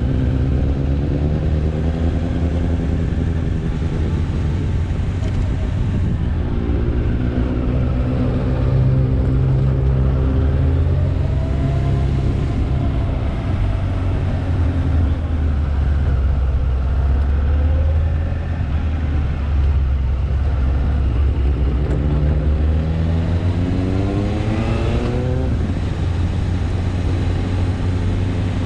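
Suzuki GSX600F inline-four motorcycle engine running under way, its pitch rising several times as it accelerates and dropping at a gear change near the end, over heavy wind rumble on the helmet-mounted camera.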